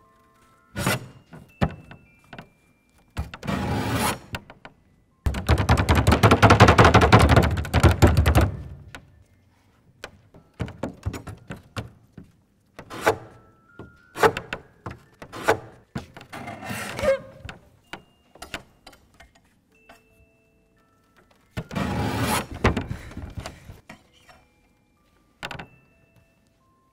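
Kitchen-knife tips on a dancer's pointe shoes striking and scraping the lacquered lid of a grand piano: scattered sharp taps, a rapid run of strikes from about five to eight seconds in, and longer scraping steps, with short faint ringing tones in between.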